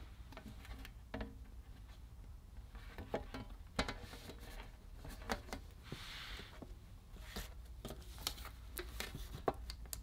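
Faint scattered small clicks and light rustling of hands handling a thin laptop screen cable and the laptop's plastic frame, with a short rustle about six seconds in.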